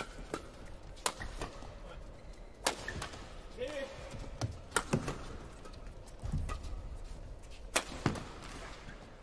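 Badminton rally: rackets striking a shuttlecock, sharp smacks coming roughly every one to two seconds, some in quick pairs.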